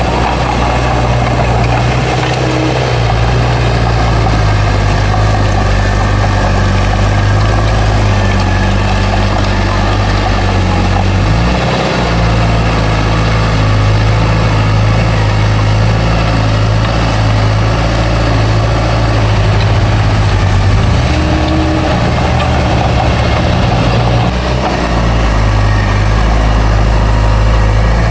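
Heavy diesel engine of a bulldozer running steadily, with its pitch dipping and shifting briefly a few times as the load changes.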